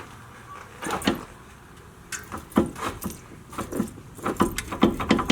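Loose front sway bar end link on a Ford Mustang GT clattering as the suspension is worked up and down by hand: irregular knocks and rattles, a few at first and then coming quickly near the end. The end link has not been tightened down, letting it knock against the sway bar, the source of the thud over bumps.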